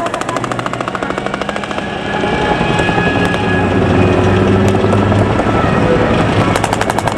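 Machine-gun fire in rapid bursts of about eight shots a second, during the first second or so and again near the end, with armored-vehicle engines running loud in between.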